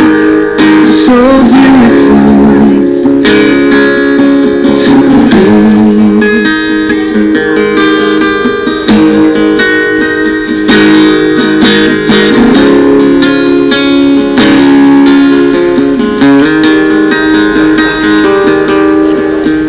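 A street musician strumming chords on an acoustic guitar, with a singing voice in places.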